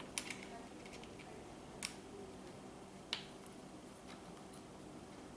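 A few light, sharp clicks as the screws are taken out of a CAA Micro Conversion Kit chassis: a pair right at the start, then single clicks about two and three seconds in.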